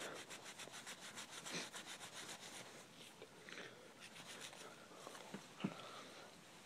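Faint rubbing and scraping as a gray fox's tail is skinned: gloved hands working the fur and a knife cutting the hide, with a few soft ticks, one a little louder near the end.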